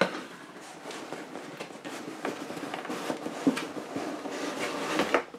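Cardboard box being opened with a utility knife: the blade scraping along the tape seal and the cardboard lid rustling, with small clicks and a few sharper scrapes.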